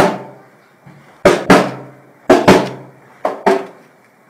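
A hand slapping the plastic side of a CRT computer monitor in quick pairs of thumps, about once a second, banging on a computer that has crashed.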